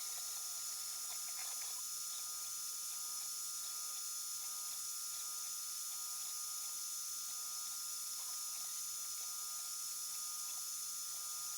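3D printer running: its stepper motors give short whines at steady pitches that start and stop as the print head moves, over a steady high hum and hiss from the printer's fans and electronics.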